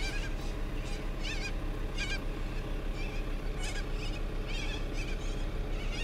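Birds calling: short, wavering chirps repeated every half second to a second, over a steady low background rush.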